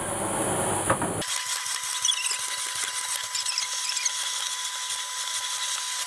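Henry HVR200 cylinder vacuum cleaner running while it is pushed over carpet: a steady whine over a high hiss, with scattered small ticks. The sound changes abruptly about a second in.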